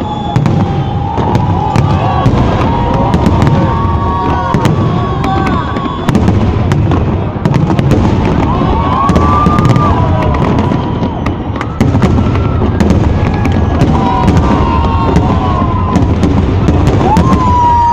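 Fireworks display: a continuous barrage of low booms and sharp crackles, with whistling tones gliding up and down in pitch.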